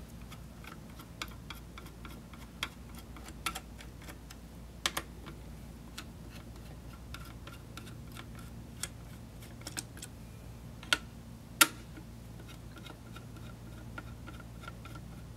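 Screwdriver loosening the four spring-loaded screws of a CPU heatsink: a string of small, irregular metallic clicks and ticks, with a couple of sharper clicks about two-thirds of the way through.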